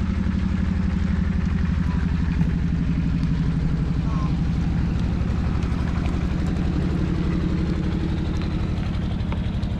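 Small boat engine running steadily with a low, fast, even throb.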